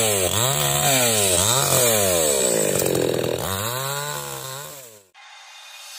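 Small petrol chainsaw cutting through branches, its engine revving up and down about once a second with a longer, lower stretch around three seconds in. It fades out about five seconds in.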